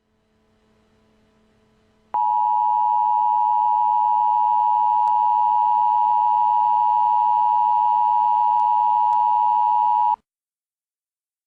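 Emergency Alert System attention signal: a loud, steady two-tone beep that starts abruptly about two seconds in, holds unchanged for about eight seconds and cuts off suddenly. It announces the emergency message that follows, here a National Weather Service severe thunderstorm warning.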